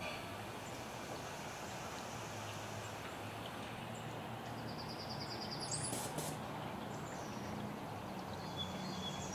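Outdoor background: a steady faint hum and hiss, with a bird's short rapid chirping and a quick rising call about five to six seconds in.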